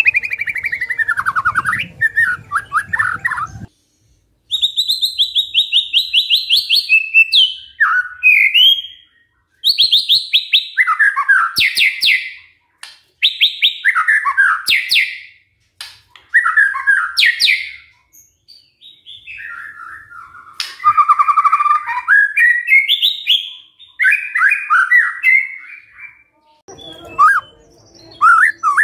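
White-rumped shama singing a run of loud phrases, each a fast rattling trill that slides downward in pitch, with short pauses between them.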